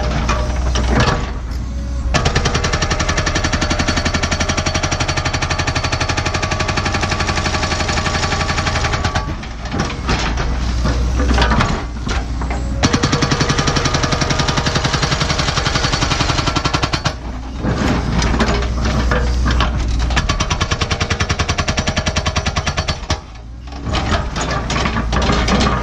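Hydraulic rock hammer on a Cat 314E excavator pounding hard bedrock in rapid, even blows, over the excavator's running diesel engine. The hammering stops briefly about five times, as the breaker is lifted and reset, then starts again.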